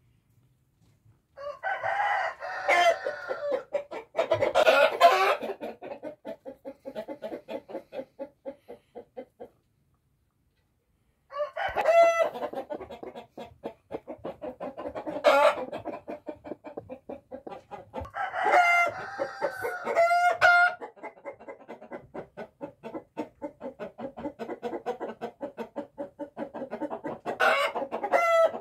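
Chickens clucking: fast runs of clucks with louder calls several times, pausing for about two seconds about ten seconds in.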